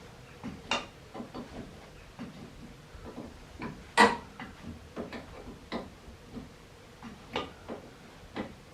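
Irregular metallic clicks and taps of a spanner working on the brake-pipe unions, with one sharp, louder click about four seconds in.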